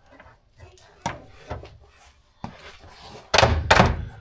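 Clunks and knocks of metal tools and parts being handled, then a louder rough scraping clatter lasting about a second near the end.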